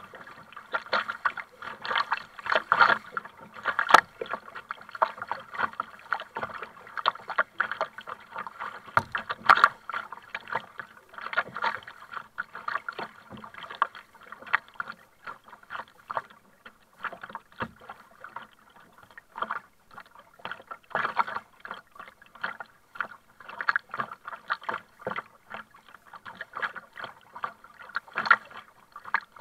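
Double-bladed kayak paddle dipping and splashing into the sea stroke after stroke, with water splashing and lapping against the kayak's bow.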